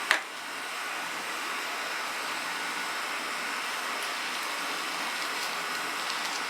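Steady, even background hiss with no tones in it, broken just after the start by one sharp click.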